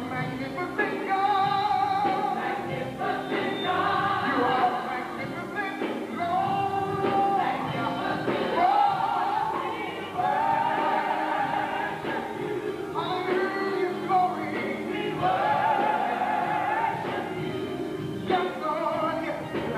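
Gospel choir singing with a live band, voices together in long held notes, phrase after phrase.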